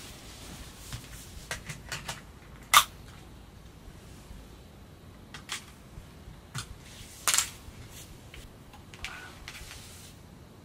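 Scattered clicks and knocks of a drone remote controller and a tablet being handled, with two sharper clicks about three seconds in and just after seven seconds.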